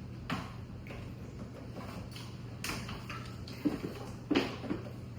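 Scattered taps and knocks of kitchen utensils and dishes being handled, the loudest a pair of knocks a few seconds in, over a steady low hum.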